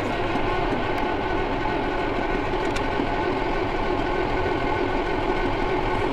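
Electric starter cranking the KamAZ truck's newly installed diesel engine steadily, the engine held from firing so that the cranking builds oil pressure; the oil pressure is not yet rising.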